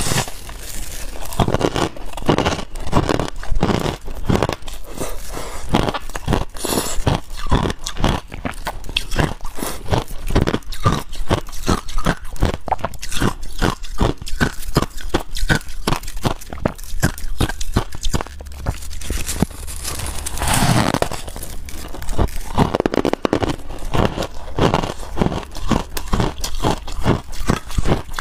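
Close-up crunching of a fluffy, snow-like block of ice topped with passion fruit sauce, bitten and chewed with rapid crisp crackles, several a second.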